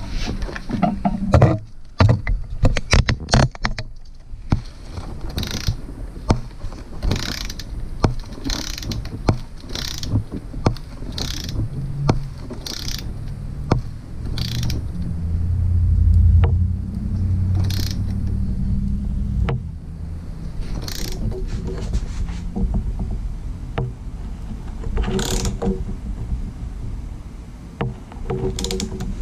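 Ratcheting torque wrench clicking in repeated strokes as oil pan bolts are run down and tightened to 132 inch-pounds, with a quick flurry of ratchet clicks a few seconds in. Occasional knocks and rubbing of tools and hands against the pan.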